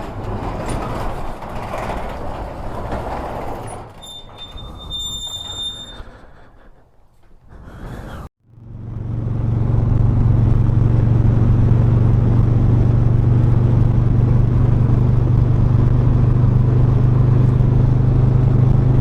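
Motorcycle engine running steadily at cruising speed with wind noise over the microphone, starting after a brief dropout about eight seconds in. Earlier there is mixed noise and a high steady tone lasting about two seconds.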